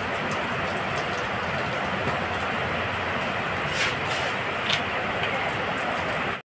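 Water running steadily from an outdoor tap and splashing as a child washes his hands under it.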